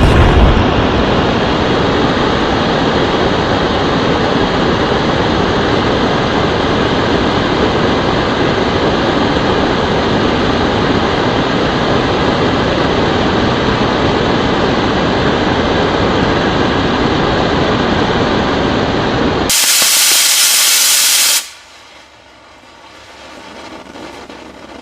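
Model rocket engine firing with a steady, loud rushing roar. About 21 seconds in it cuts off sharply, leaving only a faint hiss that slowly grows.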